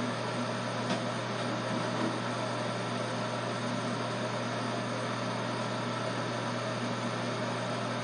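Electric hair clippers running with a steady low buzz while cutting hair.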